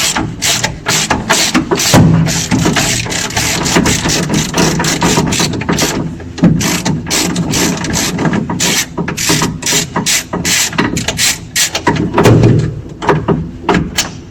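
Ratchet wrench clicking in quick runs of sharp ticks as bolts are undone to free the power steering pump and fuel pump from the engine plate.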